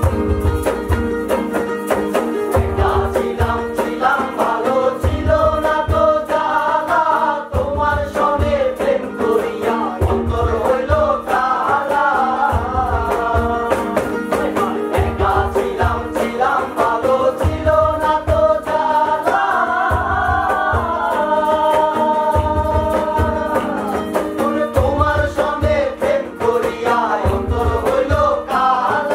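A group of young men singing a Bengali song together, to strummed acoustic guitar and ukulele, with a hand drum beating in short runs underneath.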